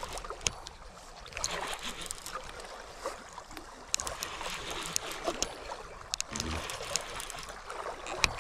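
Water splashing and trickling as a hooked flathead catfish is brought in at the water's edge, with scattered sharp clicks and knocks throughout.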